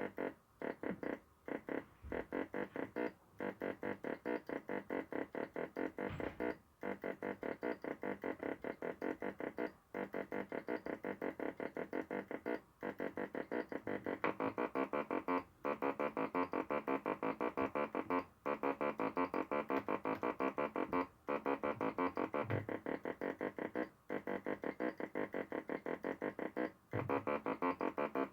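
Homemade step-sequencer synthesizer playing a fast loop of short electronic notes, with a brief gap about every three seconds where the pattern repeats. It gets louder and brighter about halfway through.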